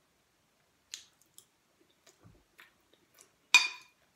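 Faint chewing and mouth clicks, then, about three and a half seconds in, a short loud clink of a metal spoon against a ceramic plate.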